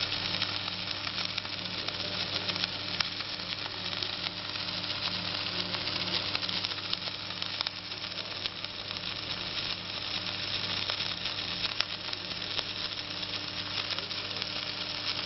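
Welding arc on a Tauro welding gantry, sizzling and crackling steadily, over a steady electrical hum.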